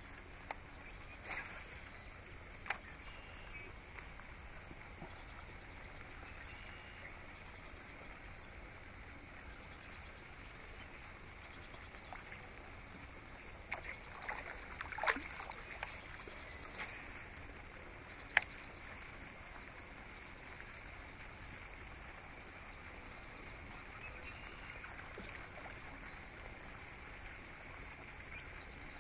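Quiet lake ambience from a fishing kayak: a steady faint hiss with occasional sharp knocks and clicks of the paddle and tackle against the plastic hull, two near the start and a small cluster a little past the middle.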